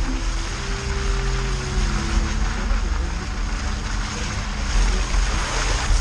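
Suzuki off-roader's engine running steadily at low speed, its pitch shifting slightly a couple of times, under a constant rush of tyres working through mud and slush.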